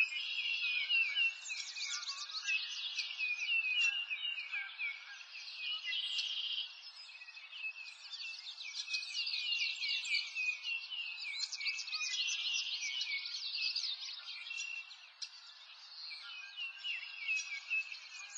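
A dense chorus of many songbirds chirping and trilling at once, high-pitched and continuous, with no low sounds beneath it.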